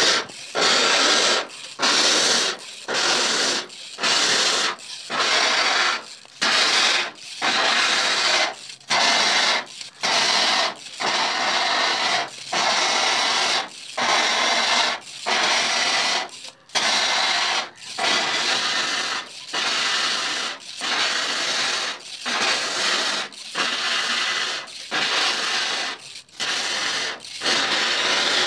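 Water jet from a hand spray lance hissing against the mesh of a screen-printing screen in repeated pulses, about one burst a second. It is washing out the exposed photo-emulsion so the stencil design clears.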